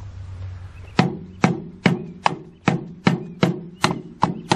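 Hand tool tamping and packing soil around a buried PVC drain fitting: sharp, evenly spaced knocks with a short ring, about two and a half a second, starting about a second in.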